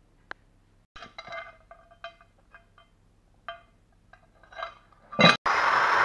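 Light metallic clinks and taps from the freshly cast aluminium plaque being handled in the sand mould. After a cut about five seconds in, an electric drill with a cup brush runs steadily, grinding against the aluminium casting to clean it.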